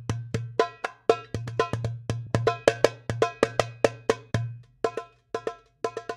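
Hadroh hand percussion played solo through a PA during a sound check: a fast, irregular run of sharp drum strokes, each with a short bright ringing tone, over a steady low hum, pausing briefly twice near the end.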